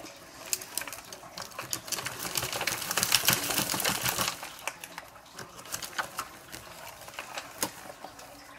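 Rooted Chinese elm and serissa cuttings being pulled apart by hand from a clump of potting soil: crackling and rustling of crumbling soil, tearing roots and brushing leaves. It is loudest and densest about two to four seconds in, with scattered clicks before and after.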